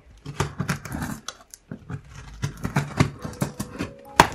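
Scissors snipping and crunching through the cardboard and packing tape along a shipping box's seam: a run of irregular crisp cuts, with one sharp loud snap near the end. Soft background music with held notes fades in during the last second or so.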